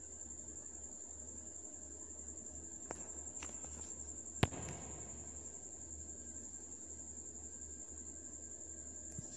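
Quiet background noise: a steady high-pitched whine over a low hum, broken by a few sharp clicks, the loudest about four and a half seconds in.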